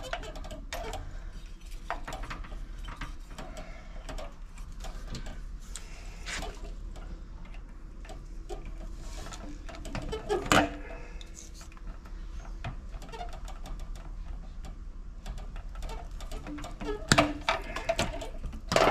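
Pliers and wire handling at an electric water heater's junction box: scattered small metallic clicks and rattles as tightly twisted wire connections are worked apart. There are a few louder knocks about ten seconds in and several near the end as the armored cable is pulled loose.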